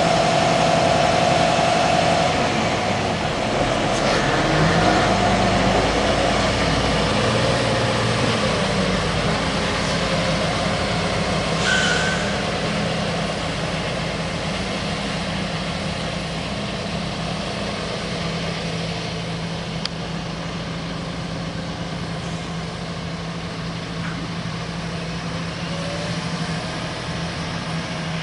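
Heavy diesel engine of a Claas Xerion 4200 tractor running steadily under load while pulling a cultivator through the field, with a short sharp sound about twelve seconds in.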